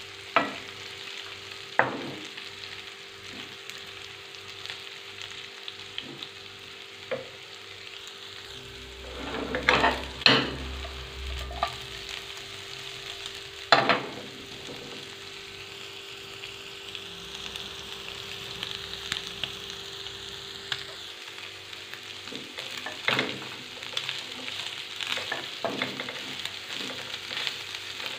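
Shredded cooked chicken sizzling as it reheats in hot oil and tomato paste in a nonstick frying pan, stirred with a wooden spoon. The spoon knocks sharply against the pan a few times, loudest around ten and fourteen seconds in.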